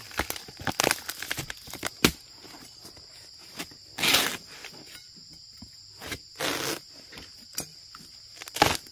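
Dry papery sheath of a wild bamboo shoot crackling and tearing in several short bursts as it is pulled by a gloved hand, with dry leaf litter rustling. Insects buzz steadily at a high pitch behind it.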